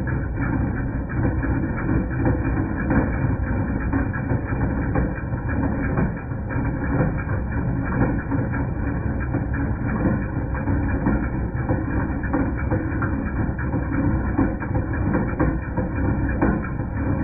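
2010 Jeep Patriot 2.0 L four-cylinder engine running, with a metallic clanking and rattling from the front accessory belt drive. The source was a failing alternator: replacing it cured the noise.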